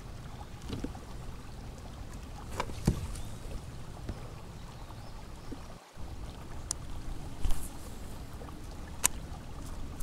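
Water moving against the side of a kayak and a half-submerged camera, with a steady low rumble and a few sharp clicks and knocks. Partway through, the sound breaks off briefly, and the clicks continue while a fishing rod and baitcasting reel are handled.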